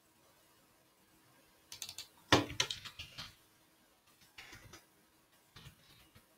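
Computer keyboard typing: a quick run of keystrokes starting about two seconds in, then a few scattered key presses.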